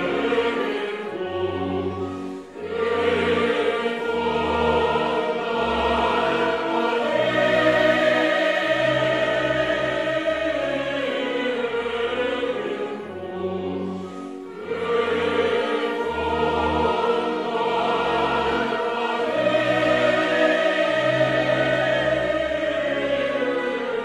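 Choir singing a slow song with instrumental accompaniment, long held notes over a low bass line, in two long phrases with a short dip about halfway through.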